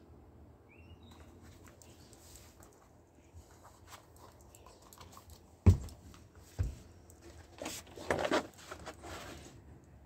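Objects being handled and set down on a wooden floor: a sharp knock about halfway through, a lighter knock just after, then a spell of scraping and plastic rustling as a plastic gallon jug is picked up.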